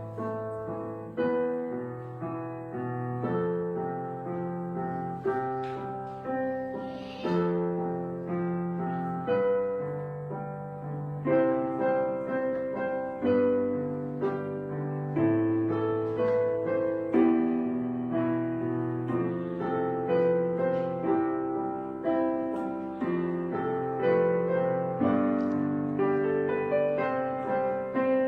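Background piano music: slow, gentle chords struck about once a second and left to ring.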